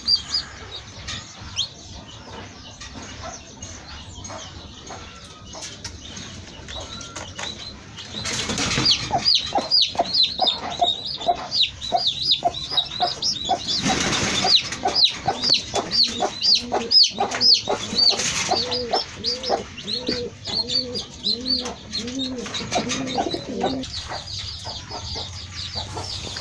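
Poultry house with many quick, high peeping chirps throughout. There are three short rushes of wing flapping, and a run of low calls about two a second in the second half.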